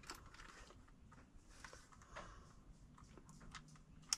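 Near silence with a few faint, scattered small clicks of screws and a driver being handled.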